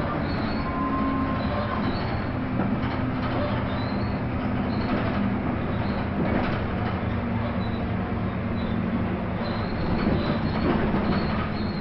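Interior of a Jelcz 120M city bus under way: the engine running steadily under road noise, with the body and fittings rattling throughout.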